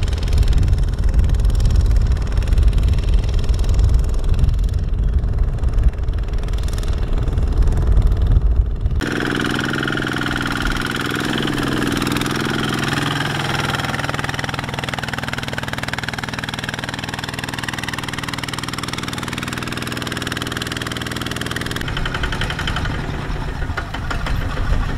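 Kubota RT155 walking tractor's single-cylinder diesel engine running under load, pulling a loaded trailer through mud. About nine seconds in the sound switches abruptly to a steadier, even engine note, and it changes back to a heavier, deeper rumble a few seconds before the end.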